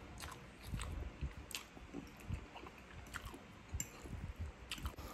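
Close-miked chewing of a mouthful of spaghetti: soft, irregular wet clicks and smacks from the mouth.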